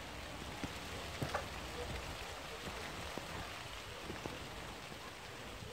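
Light rain falling steadily, with scattered drops ticking sharply close by.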